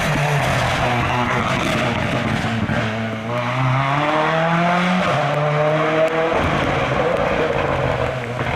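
Subaru WRX S4 rally car's turbocharged flat-four passing at speed on a wet tarmac stage. The first seconds are a dense roar of engine and tyre hiss as it goes by; then the engine pulls hard with rising pitch, drops at an upshift about five seconds in, climbs again and fades as the car drives away.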